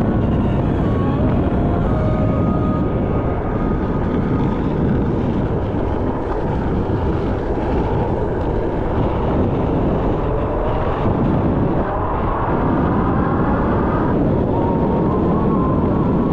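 Motor vehicle engine running under a loud, steady rumble of wind and motion noise; its pitch climbs for several seconds, then drops back near the end.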